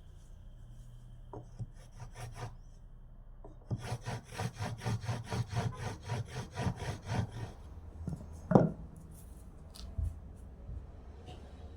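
A hand tool stroked back and forth on wood: a few slow strokes, then a quick steady run of about four strokes a second for several seconds. It ends with one sharp loud knock on the wood and a fainter one after.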